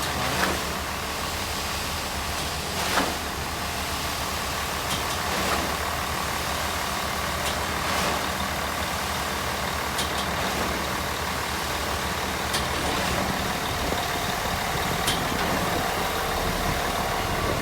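Concrete mixer truck running steadily, its engine idling, with a sharp click about every two and a half seconds.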